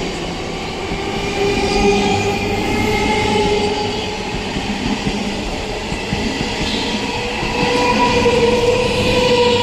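Howrah–Barddhaman electric local train running on the track: a steady rumble with high whining tones that drift slightly in pitch and grow louder twice.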